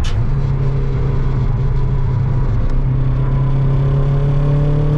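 Turbocharged Acura RSX's four-cylinder engine pulling at a steady cruise, heard from inside the cabin over low road and tyre rumble, its pitch climbing slightly near the end. A brief click right at the start.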